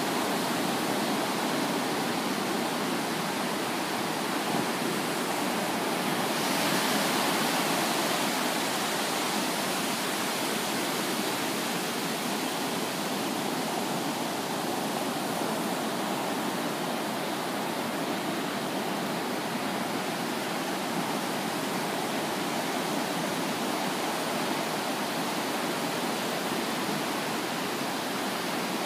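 Ocean surf: small waves breaking and washing up the sand in a steady rushing hiss that swells a little about seven seconds in.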